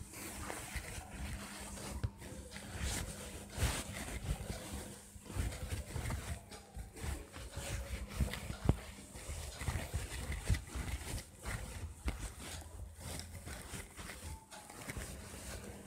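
Duster wiping marker off a whiteboard: a long run of irregular rubbing strokes.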